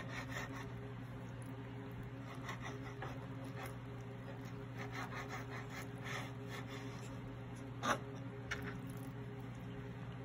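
Chef's knife slicing raw beef thinly on a plastic cutting board: faint, scattered soft scrapes and taps, with one sharper knock about eight seconds in, over a steady low hum.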